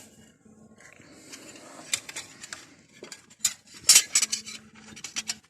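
Metal tools and engine parts being handled: a run of light metallic clinks and clatters, the loudest a little before four seconds in.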